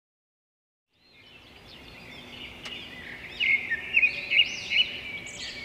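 Birdsong ambience: many birds chirping and twittering, fading in about a second in and growing louder, with sharp repeated chirps in the second half.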